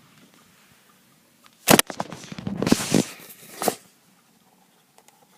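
Thunder from a nearby lightning strike: a sudden sharp crack about a second and a half in, then about two seconds of loud crackling rumble ending in a second crack.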